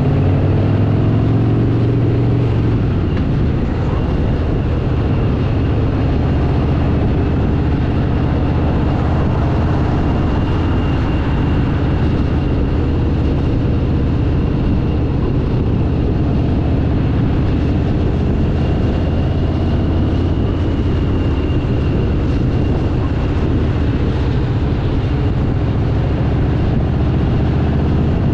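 Harley-Davidson V-twin motorcycle engine running steadily under way, with wind and road noise and a thin, steady high whistle.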